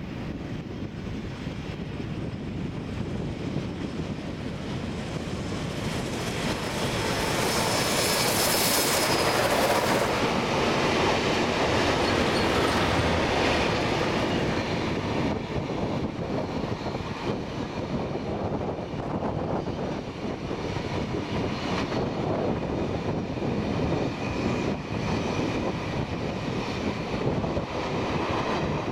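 Heritage train of two steam locomotives and three Alco diesels passing at speed. The sound builds to its loudest as the locomotives go by, about eight to ten seconds in, then settles into carriages rolling steadily past on the rails.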